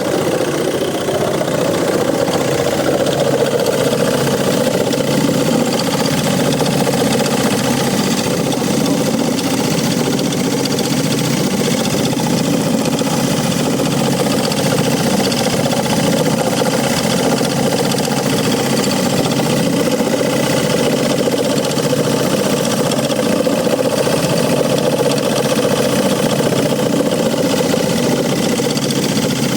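Ford Transit Mk7 2.2 TDCi four-cylinder diesel engine idling steadily with a rattling (Klappern) noise.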